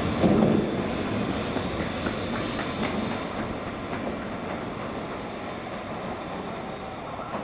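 N700S Shinkansen train pulling out of the station; its running and wheel-on-rail noise fades steadily as it moves away.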